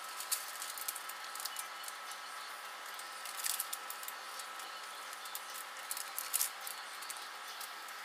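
Microwave oven running with a steady hum while Lowrey's microwave pork rinds puff and crackle inside their bag, in scattered sharp clicks and pops that come in small clusters.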